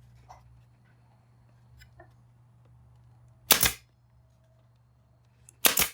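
Pin nailer firing twice, two sharp shots about two seconds apart, driving pins into the birdhouse's wood.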